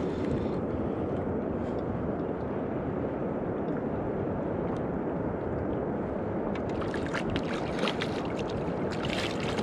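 Hooked walleye splashing and thrashing at the surface beside the boat, in short clusters of splashes in the last few seconds, over a steady low rushing noise of water and wind.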